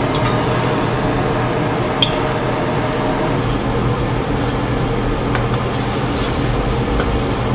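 Steady kitchen noise while cooking, with a few light clinks of dishes and utensils, the sharpest about two seconds in.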